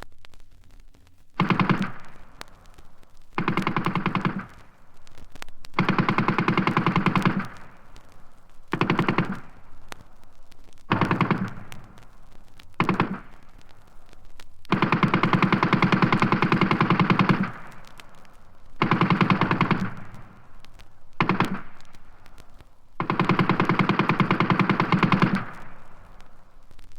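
Automatic gunfire from a sound-effects recording: about ten bursts of rapid shots, some short and some held for two to three seconds, with short pauses between them.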